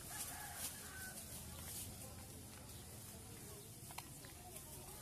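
Open-air market ambience: a steady mix of distant voices and activity, with a few faint short pitched calls and a single sharp click about four seconds in.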